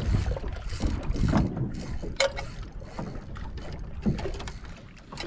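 Water lapping against a small boat's hull with wind on the microphone, and a few scattered clicks and knocks.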